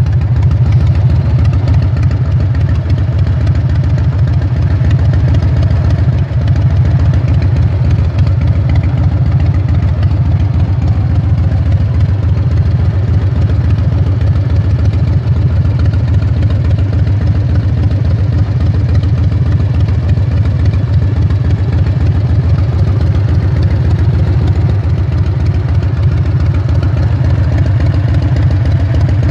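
Harley-Davidson Fat Boy Softail's 1340cc Evolution V-twin engine idling steadily.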